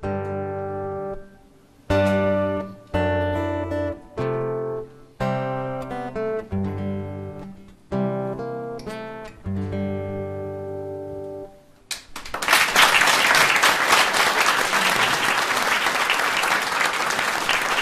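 Acoustic guitar playing a closing run of struck chords, each left to ring, the last held for about two seconds as the song ends. About twelve seconds in, audience applause breaks out and continues.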